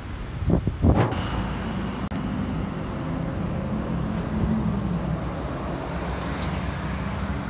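Yutong electric trolleybus passing close by in street traffic: a steady low hum over road noise, with a short loud burst of noise about a second in.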